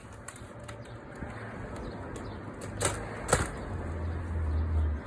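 Two sharp knocks about half a second apart, over a low hum that swells near the end.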